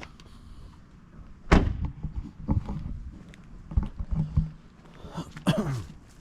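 A sharp, loud thump about one and a half seconds in, followed by several lighter knocks. Near the end there is a short sound that falls steeply in pitch.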